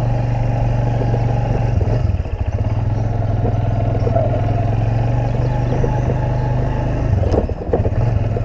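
Suzuki YES 125's single-cylinder four-stroke engine running steadily as the motorcycle rides along slowly. The engine note falls away briefly twice, about two seconds in and again near the end.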